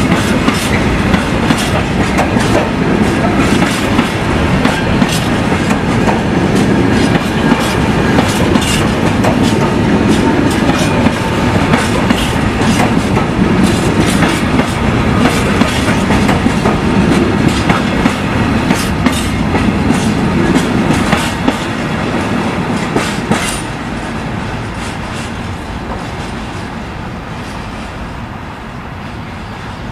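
A freight train's covered hopper wagons rolling past at close range, their wheels clicking over the rail joints. The sound falls away over the last several seconds as the end of the train passes.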